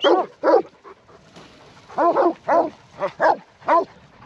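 Working sheepdog barking: two short barks, a pause of about a second, then five more in quick succession, driving a mob of ewes and lambs.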